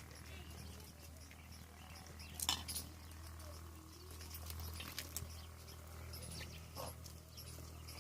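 Peafowl pecking at scattered grain: scattered sharp taps, the loudest about two and a half seconds in, over a steady low hum.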